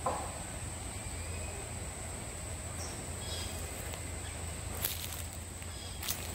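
Woodland ambience: a steady, high-pitched insect drone over a low rumble, with a few faint chirps midway. Two sharp clicks sound near the end.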